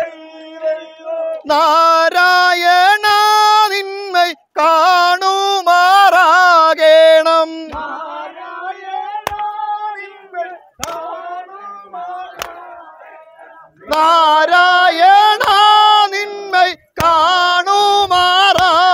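Voices singing vanchipattu, the traditional Kerala boat song, in unison with a wavering, held melody. There are two loud sung phrases, about a second in and again near the end, with quieter singing between them.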